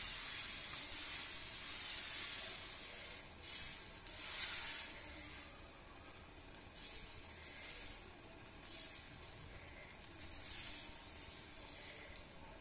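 Besan batter sizzling faintly on a hot non-stick pan as a steel ladle spreads it in circles, the hiss swelling briefly several times.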